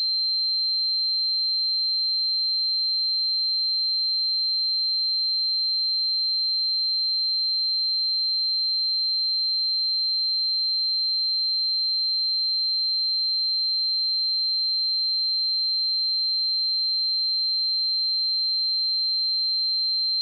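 A steady, unbroken 4135 Hz sine-wave test tone, one pure high-pitched note held at a constant level.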